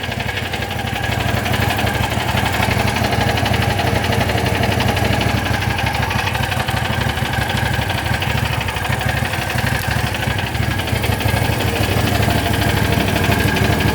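Landmaster's small engine idling steadily, its firing pulses running together into an even low chug.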